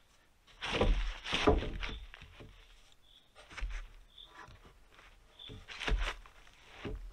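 Wooden roof poles being laid and shifted against each other on a log dugout roof: irregular wooden knocks and thuds, loudest about a second in and again near the end, with footsteps on the logs.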